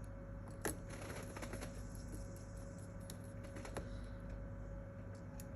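Light, scattered clicks and taps of a small screwdriver and tiny screws being fitted into a Samsung Galaxy A10 phone, over a faint steady hum.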